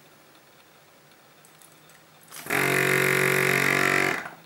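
ERSA CU 100 A vacuum compressor starting up about two seconds in, running with a steady hum for about two seconds, then shutting off. It is topping the desoldering station's vacuum back up after the suction button on the handpiece has drawn it down.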